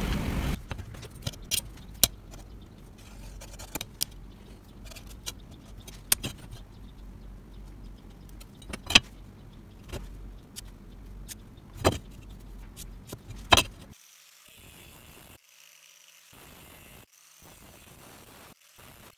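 Workbench handling of a steel cleaver blade: scattered sharp clicks and clinks over a low hum. About fourteen seconds in, an angle grinder starts cutting through the steel blade, heard faint because it has been turned down.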